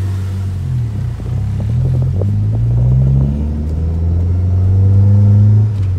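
Car engine heard from inside the cabin while driving, its pitch rising as it accelerates, falling back about three seconds in, then rising again and dropping near the end.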